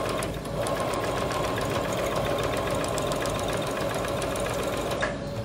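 Singer sewing machine stitching a seam at a steady speed through layered cotton fabric and batting, a fast, even run of needle strokes. There is a short break just after the start, and the stitching stops about five seconds in.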